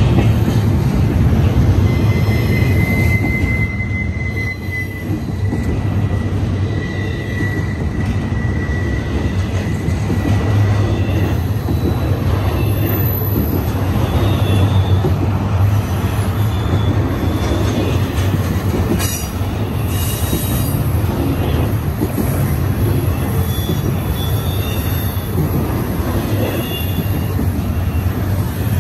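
Double-stack intermodal freight cars rolling past on curved track: a steady low rumble of wheels on rail, with wheel flanges squealing in thin high tones, one held from about two to eleven seconds in and shorter ones later, the squeal of wheels grinding against the rail through the curve.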